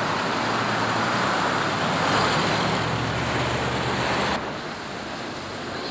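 Rushing noise of a passing road vehicle, with a low engine hum swelling about two seconds in, cutting off abruptly a little past four seconds.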